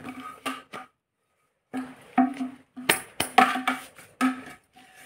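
Hollow plastic hula hoop tube sections knocking and clicking against each other as they are handled and pushed together during assembly: a quick run of short hollow knocks with a brief pause about a second in.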